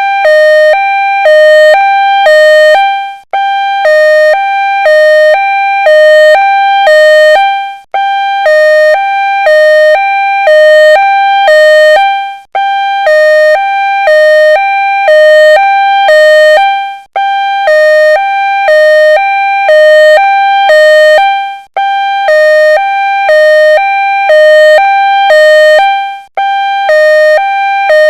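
Two-tone ambulance siren: a high and a low tone alternating about every half second, with a brief break about every four and a half seconds.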